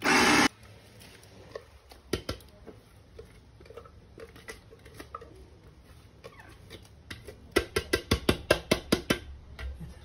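Electric mini food chopper chopping peppers, running loudly for about half a second and cutting off sharply. Near the end comes a quick run of about a dozen sharp clicks.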